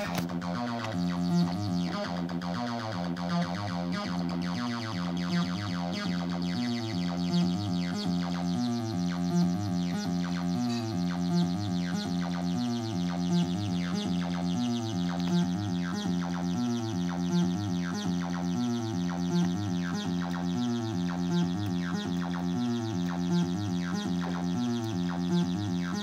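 TB-303-style bass synthesizer, the ML-303 clone, playing a sequenced acid bassline, a short pattern of notes that repeats about every two seconds with the filter sweeping across the notes.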